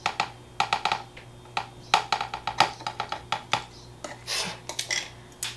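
A plastic cup being tapped and jostled with metal tongs to coax a centipede out into its enclosure: irregular light clicks and taps in quick clusters.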